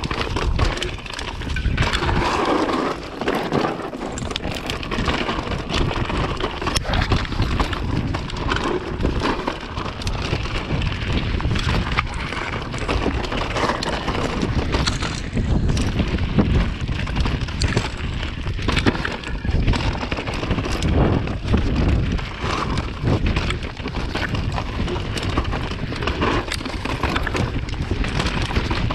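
Trek mountain bike descending rough, muddy singletrack: tyres crunching over dirt and loose stones, with constant knocks and rattles from the bike as it hits rocks and roots. Wind buffets the microphone, adding a steady low rumble.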